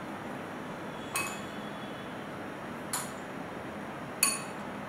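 A metal spoon clinking against glass dishes three times, each a short ringing clink, the last the loudest, as strawberries are scooped from a glass bowl into glass dessert cups.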